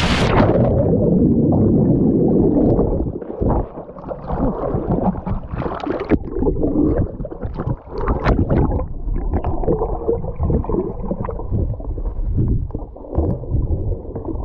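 A sudden splash into the sea, followed by about three seconds of churning water, then muffled underwater gurgling and bubbling.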